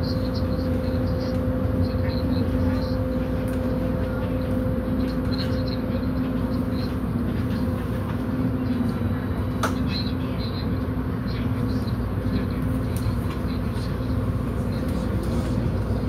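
Inside an MTR Tung Chung Line A-train carriage: the steady rumble of the train, with a constant low drone and one sharp click about ten seconds in.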